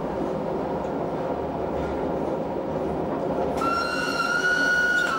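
Appenzell Railways metre-gauge electric railcar running along the track with a steady rumble. About three and a half seconds in, a high, slightly rising tone with overtones starts and carries on to the end.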